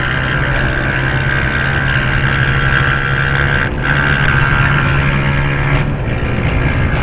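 Car engine and road noise, a steady hum with two brief dips about four and six seconds in.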